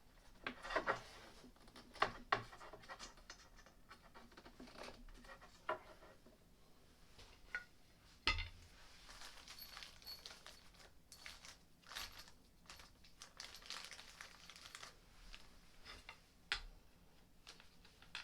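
Flat-pack changing-table parts being handled and fitted together: irregular light knocks and clicks with scraping and rustling between them, the sharpest knocks about a second in, around two and eight seconds, and near the end.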